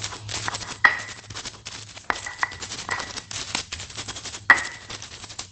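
Pestle grinding sambal chillies in a mortar: irregular scraping knocks, with a few harder strikes that ring briefly.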